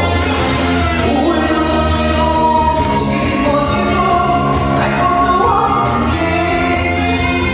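A man singing a trot song live into a handheld microphone over loud amplified accompaniment with a steady bass line.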